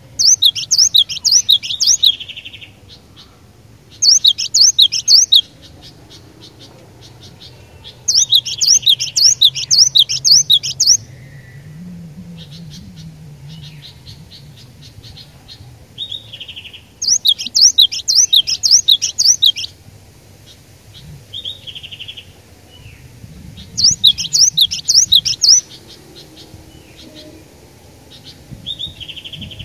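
Cinereous tit (glatik batu) singing in loud bursts of rapid, high, repeated notes, five bursts of two to three seconds each, with a few short, lower calls between them.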